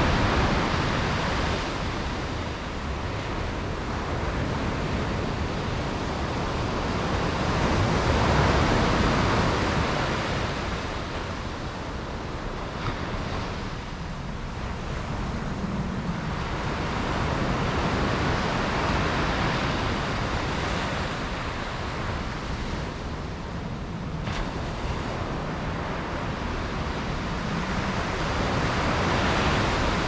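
Sea waves breaking on the shore in a continuous wash of surf, swelling and easing about every ten seconds.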